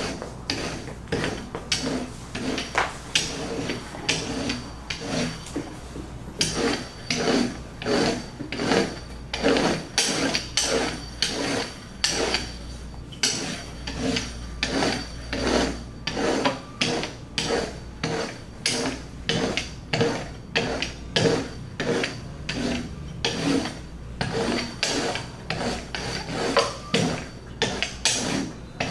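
A metal rolling pin rolled back and forth over a sheet of dough on a wooden table, making rhythmic rubbing strokes, about two a second.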